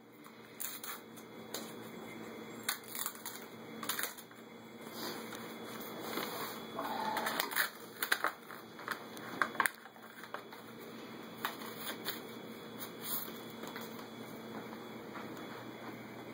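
Paper rustling and crinkling as a greeting-card envelope is opened and handled, in scattered short crackles that are densest in the first ten seconds and then thin out.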